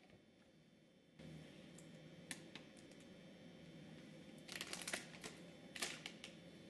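Faint scattered clicks and taps of small objects being handled, bunched into two quick clusters in the second half, over a low steady hum that comes in about a second in.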